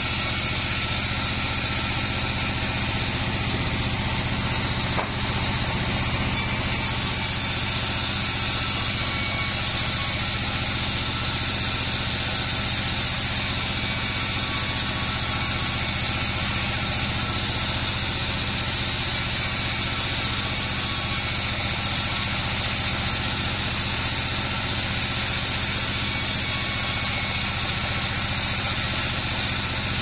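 A 36-inch band sawmill running steadily while kapok (randu) logs are fed through the blade, with one sharp click about five seconds in.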